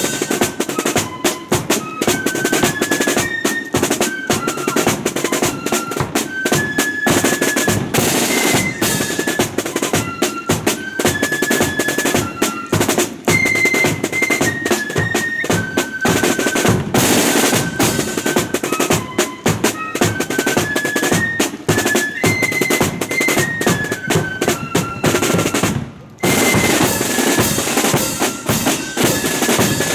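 Marching flute band playing a tune: flutes carry a stepping melody over rolling snare drums, with bass drum and cymbals. The music drops out for a moment near the end, then carries on.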